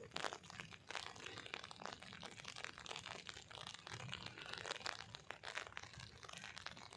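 Faint, irregular clicks and rustles of handling while working over a charger's circuit board.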